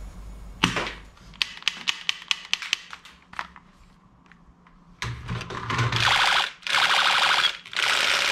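Sharp plastic clicks and knocks from plastic toy guns being handled, then a battery-powered toy gun's electronic rapid-fire sound effect about five seconds in, in loud rattling bursts broken by short gaps.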